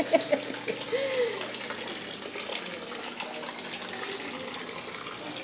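Thin stream of cachaça falling steadily from a wooden barrel's spout into a basin, a continuous splashing trickle.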